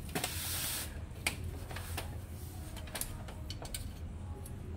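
Plastic housing of an HP LaserJet M26a laser printer being handled during reassembly: a brief scraping rasp in the first second, then a few light clicks and knocks of plastic parts. A low steady hum runs underneath.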